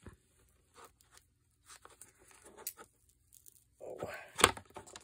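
Bookbinding awl being forced through a paper signature layered with doily fragments: scattered soft crackles and tearing as the point pierces the paper, then a louder crunching stretch with a sharp click near the end.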